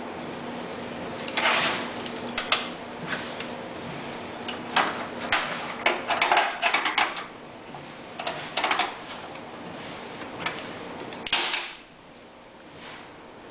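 Irregular clicks, knocks and scrapes of metal parts and tools being handled on a generator's stator assembly, coming in short clusters, with a faint steady hum underneath.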